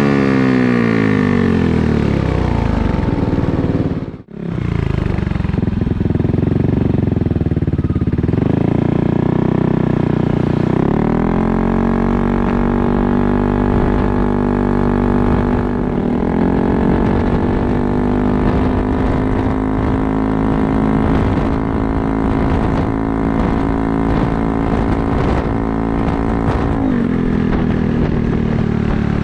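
Yamaha Aerox 155's single-cylinder engine revving through an aftermarket Corse Italian Performance carbon exhaust. The sound cuts out for an instant about four seconds in, the revs then fall, climb again and are held high and steady for about fifteen seconds, dropping and picking up again near the end.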